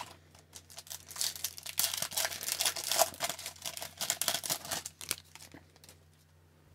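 Foil wrapper of a hockey card pack crinkling and tearing as it is ripped open, a quick run of crackles that dies down about five seconds in.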